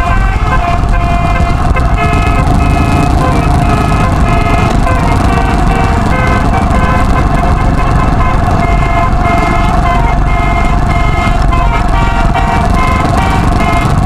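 A bus's multi-note musical air horn (telolet) playing a continuous tune of quickly changing notes over one held note, heard over a steady low rumble of wind and road noise from a moving vehicle.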